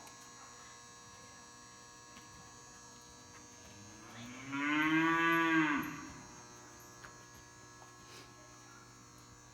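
A cow mooing once, one long call of about a second and a half whose pitch rises and then falls, over a steady electrical hum.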